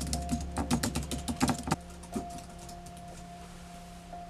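Rapid typing on a slim computer keyboard, a quick run of key clicks that stops a little under two seconds in. A sustained musical drone holds steady underneath.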